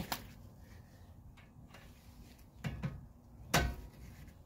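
Hand tools being handled and set down: a few light clicks and knocks, the loudest a sharp clink about three and a half seconds in with a brief ring after it.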